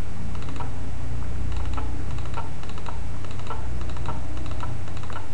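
Scattered clicks of a computer mouse, one to two a second and some in quick pairs like double-clicks, over a steady low electrical hum.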